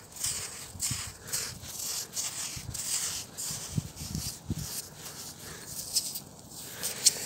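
Fingers scraping and digging through wet beach sand to pull out a clam. Gritty rasping strokes come about two or three a second, with a few soft thumps midway.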